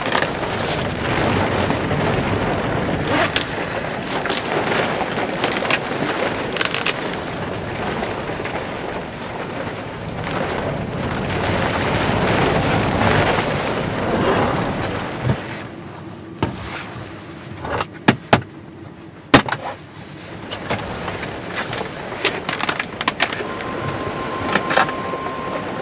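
Heavy rain drumming steadily on the roof and windows of a small VW camper van, heard from inside the cabin. About sixteen seconds in the rain noise drops away, and a few sharp knocks sound inside the van.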